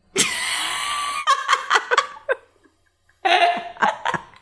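Women laughing hard: one long held note, then a run of short bursts, and after a brief pause another round of laughter about three seconds in.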